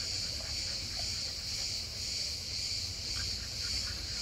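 Steady high-pitched buzzing of an insect chorus, with a low rumble underneath.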